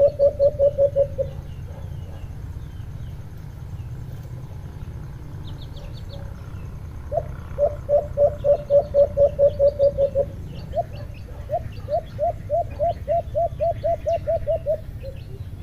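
Caged decoy dove (alimokon) cooing in rapid runs of short, low coos, about five a second: one run at the start, then two longer runs from about seven seconds in. Small birds twitter faintly behind it.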